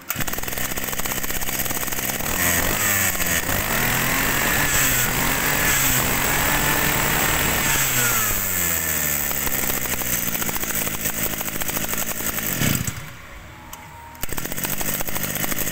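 Kawasaki TD33 two-stroke brush-cutter engine running and revved up and down from the carburettor throttle. About thirteen seconds in it falls back and quietens for a moment, then picks up again.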